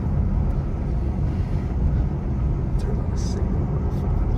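Steady low rumble of tyre and engine noise heard from inside a car driving along a paved road.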